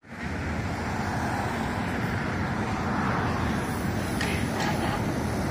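Street traffic noise: a steady rush of passing vehicles with a low rumble. Two brief high hisses come about four seconds in.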